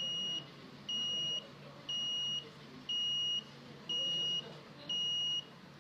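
Piezo buzzer of an Arduino alarm clock sounding the alarm: a high, steady beep about half a second long, repeated once a second, six times.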